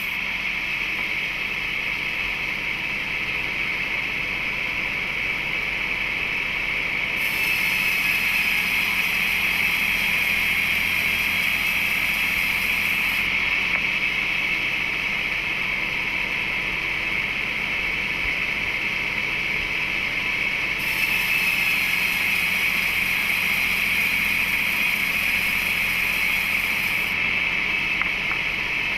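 Large wood-cutting saw running steadily with a high, even whine. Twice, for about six seconds each, a brighter hiss rises over it, as the blade cuts through the wood.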